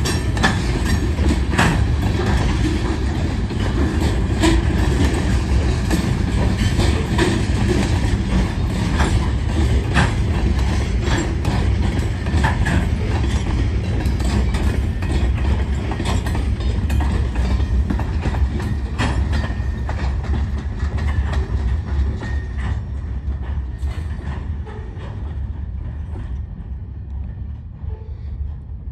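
Freight train's covered hopper cars rolling past: a steady low rumble with repeated clicks of wheels over rail joints. The sound fades over the last several seconds as the end of the train moves away.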